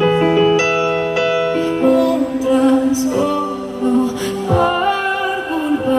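Live pop music with a woman singing sustained notes over the band.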